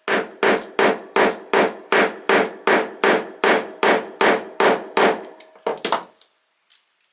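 Hammer striking a press-stud setting tool with a conical end, driving it down onto the cap's stem to fix an S-spring press stud's socket on an anvil. About fourteen even blows, a little under three a second, each with a short ring, then a few lighter taps before it stops.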